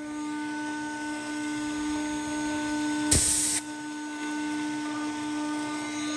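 CNC router spindle running steadily with a tiny bit while it carves inlay pockets in a guitar fretboard. A loud hiss lasting about half a second breaks in about three seconds in.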